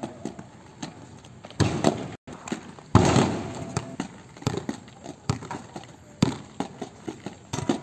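Irregular knocks and clatter of a roll ball game on roller skates: the ball bouncing and skate wheels on paving tiles, with two louder impacts about one and a half and three seconds in.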